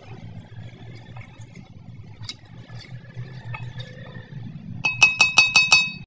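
Stirring in a steel cooking pot: a steady low hum with faint scraping clicks, then, near the end, a quick run of about seven ringing metallic taps.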